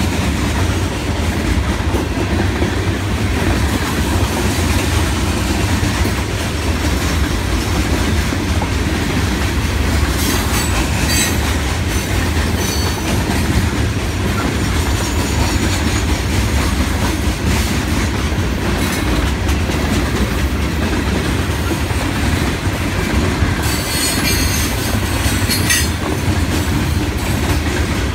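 Long freight train of open-top hopper cars rolling by: a steady rumble of steel wheels on rail with clickety-clack over the rail joints. High wheel squeals break in briefly, twice, partway through.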